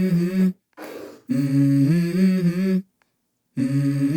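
Wordless humming of a song melody in held phrases broken by short pauses, stepping between a few notes.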